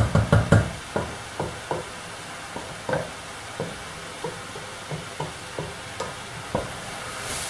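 Wooden spatula stirring diced kohlrabi, zucchini and bread cubes in a stainless steel pot, knocking and scraping against the pot: a quick flurry of strokes at the start, then irregular strokes about every half second. Underneath, the vegetables sizzle steadily as they sauté.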